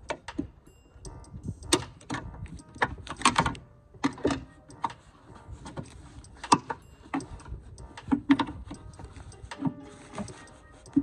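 Irregular clicks and metal knocks of a gas trunk strut being fitted by hand, its socket end pressed and snapped onto the ball-stud mount of a 2015 Dodge Challenger's trunk lid.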